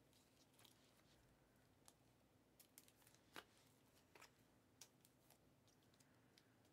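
Near silence with faint, scattered clicks of trading cards being handled and flipped through a stack.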